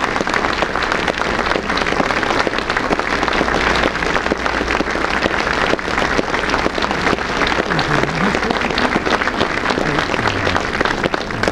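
Large audience applauding: dense, sustained clapping from many hands at a steady level.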